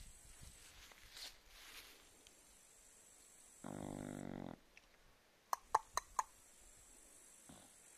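A sleeping chow chow snoring once, a steady, low-pitched snore lasting under a second about halfway through. Near the end come four quick, sharp clicks, the loudest sounds here.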